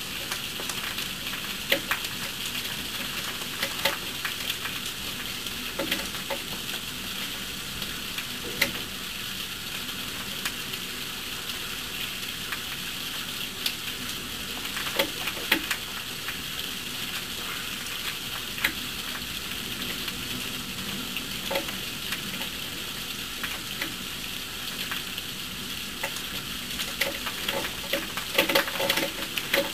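Heavy rain falling, a steady hiss with scattered sharp drips and splashes close by that come thicker near the end.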